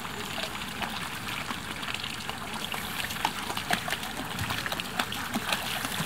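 Steady trickle of water into a shallow dog pool, with small scattered splashes as a sheltie puppy steps into the water and wades through it.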